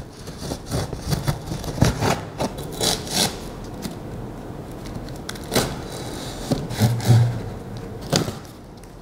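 Packing tape on a large cardboard shipping box being cut and peeled open, with irregular scraping and rubbing against the cardboard and a few sharp clicks.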